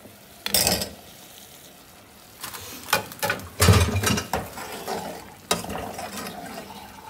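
Halved raw potatoes tipped from a plate into a metal pot of frying masala about half a second in. A metal spoon then knocks and scrapes against the pot as they are stirred in, loudest near the middle.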